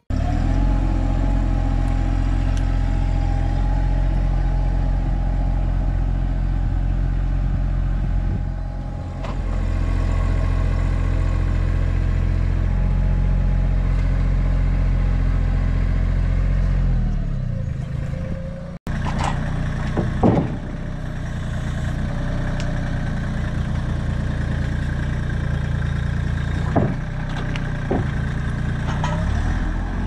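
Compact tractor's diesel engine running as its front-loader grapple carries and loads logs, the engine speed shifting now and then. A few sharp knocks in the second half.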